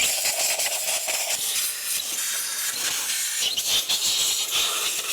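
Compressed-air blow gun hissing steadily as it blasts dust off the top of an engine before the valve cover comes off.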